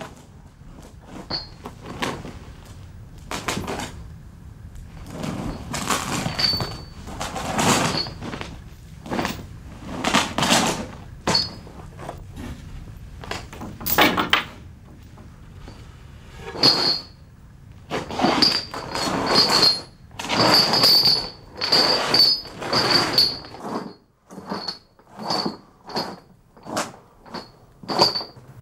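Iron chains and cell fittings clanking and rattling in a long run of separate strikes, coming more often and louder in the second half. Many strikes carry a short metallic ring.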